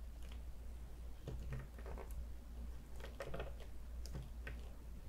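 Faint plastic clicks, taps and light scrapes of a Diamond Select Loki action figure being handled and stood on a tabletop, over a low steady hum.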